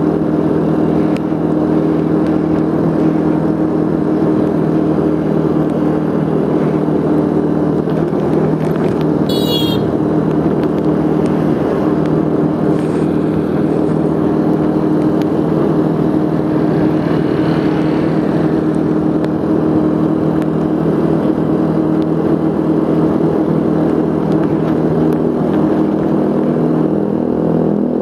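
Motorcycle engine running at a steady speed while riding along a road, with wind and road noise. A brief high chirp sounds about nine seconds in.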